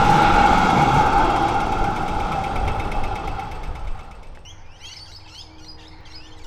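A heavy vehicle's droning engine noise fades away over the first four seconds. Then a lot of birds start up with a rapid run of high, quick chirps and calls.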